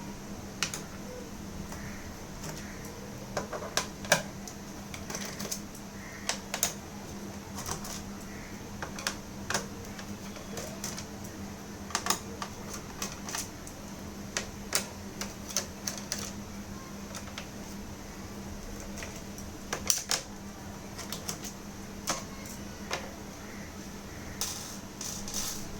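Irregular small clicks and taps of a screwdriver backing out the bottom-cover screws of a Lenovo IdeaPad 330-15IKB laptop, with a steady low hum underneath.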